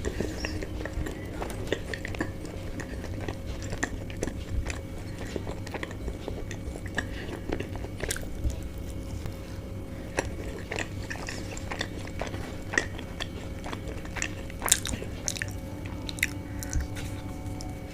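Chewing and biting of chicken bao buns close to the microphone: irregular mouth clicks and smacks. A steady low hum runs underneath.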